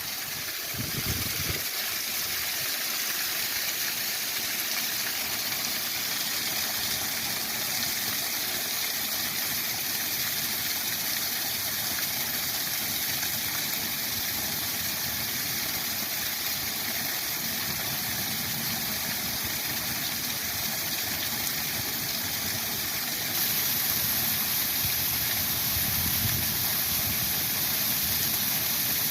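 Waterfall rushing as a steady, even hiss of falling water, growing slightly louder about three-quarters of the way through.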